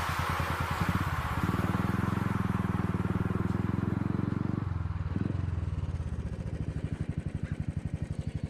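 Motorcycle engine running with an even pulsing beat, picking up about a second in and easing off about halfway through.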